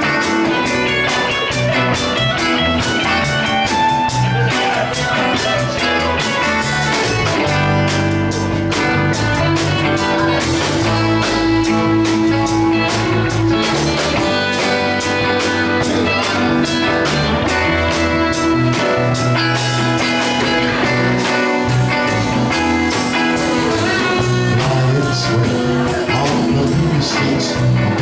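Instrumental break of a blues-rock song: guitar playing over a steady bass line and drum beat.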